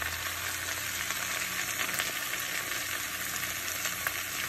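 Chopped mallow leaves frying in olive oil with onions and garlic in a pan: a steady sizzling hiss with a few faint ticks.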